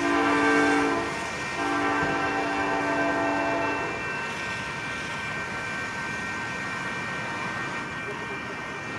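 Amtrak P42DC locomotive's air horn sounding a chord. One blast ends about a second in, and a second blast follows and stops a few seconds later. After that comes the steady noise of the passenger train running past.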